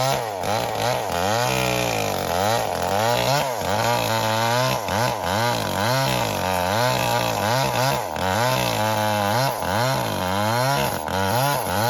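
Small engine revving up and down over and over, its pitch rising and falling roughly once a second.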